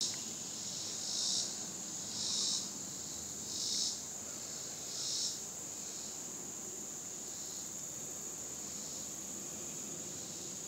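Insects calling: a steady high-pitched drone, with four louder swells about a second and a half apart in the first five seconds.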